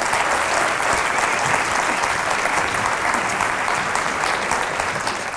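Audience applauding steadily, the clapping starting to fade near the end.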